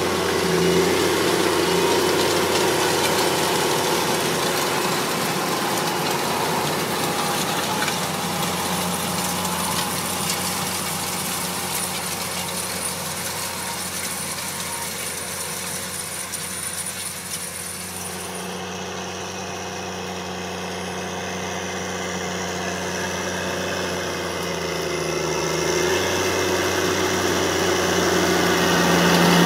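Challenger tracked tractor's diesel engine running steadily under load while pulling a seed drill. The sound changes abruptly about two-thirds of the way through and grows louder near the end as the tractor comes close.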